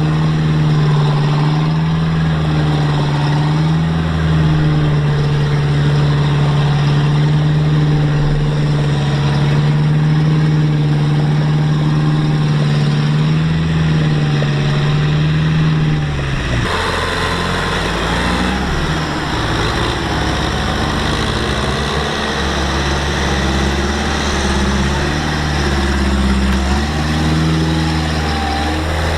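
Diesel engines of farm machinery running steadily under load, the pitch wavering slightly. About two-thirds of the way through the sound changes abruptly to a rougher, noisier engine.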